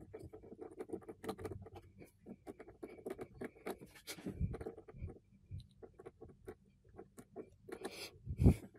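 Small screwdriver scraping and clicking against the bearing screw in the metal tonearm pivot of a Yamaha GT-750 turntable as the screw is worked loose, in a string of irregular small ticks and scratches. Two dull bumps of handling come through, one near the middle and a louder one near the end.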